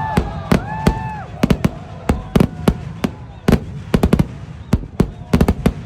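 Kerala vedikkettu fireworks: a rapid, irregular string of sharp firecracker bangs, several a second, many in quick doubles and triples.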